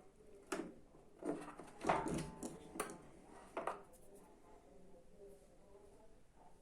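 A handful of knocks and clatters from washing machine parts and tools being handled during disassembly, clustered in the first three and a half seconds with the loudest around two seconds in.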